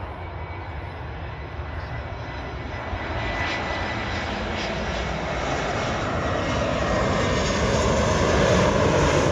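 Jet airliner on a low landing approach, its engine roar growing steadily louder as it comes in.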